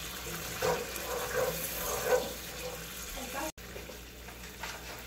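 Wooden spatula stirring a thin, simmering sauce in a nonstick pan, making wet scraping strokes about every 0.7 s. After an abrupt break a little past halfway, only the soft simmer of the sauce is heard.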